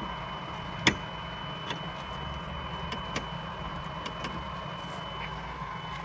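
Steady machinery hum with a faint high whine. Over it, one sharp metallic click about a second in and several lighter clicks and ticks follow as a small brass fitting with a mesh strainer is unscrewed and handled by hand.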